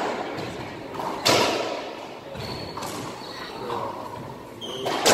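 Racquetball and racquet play: three sharp, echoing smacks of the ball, about a second in, near three seconds and near the end, ringing off the hard walls of the enclosed court.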